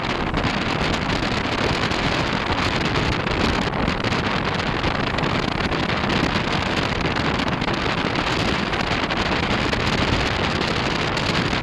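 Wind buffeting the microphone from a moving vehicle's open window, over steady road and engine noise; an even rushing that does not let up.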